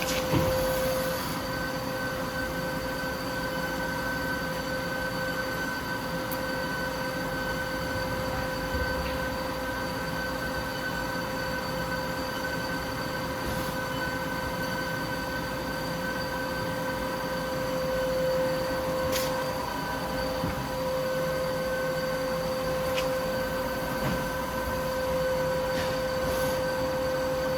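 Hwacheon Hi-Tech 400A CNC lathe running under power: a steady machine whine of several held tones, with a few faint clicks.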